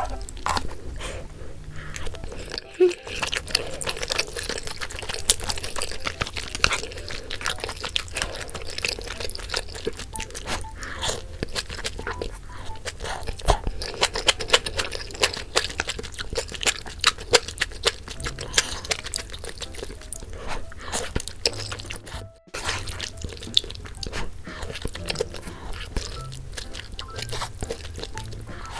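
Close-miked eating and food-handling sounds: dense clicks and crunches, with some liquid sounds, over a low steady hum.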